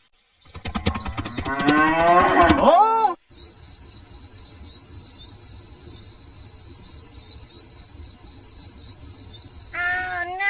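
A cow mooing, a loud drawn-out call that rises and then falls in pitch over about three seconds. Crickets follow with a steady chirring, until a short pitched sound near the end.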